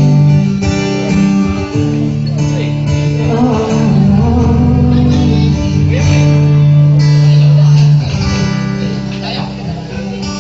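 Acoustic guitar strumming the closing chords of a song, the last chord ringing out and fading from about eight seconds in.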